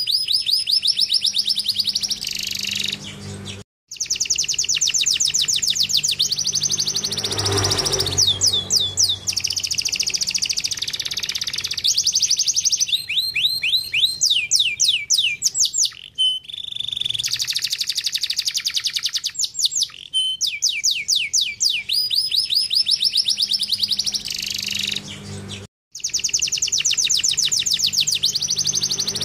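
Domestic canary singing: long runs of fast, repeated trills, each note a quick high sweeping whistle, switching from one trill type to the next. The song cuts off abruptly twice, about four seconds in and about three quarters of the way through, then resumes at once.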